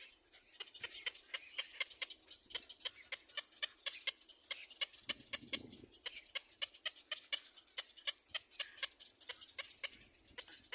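A fledgling bird's begging calls: a fast, steady run of short, sharp, high chirps, several a second.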